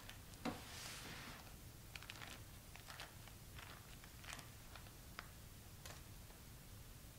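Quiet handling sounds: a soft knock about half a second in, a brief rustle, then scattered light taps and clicks.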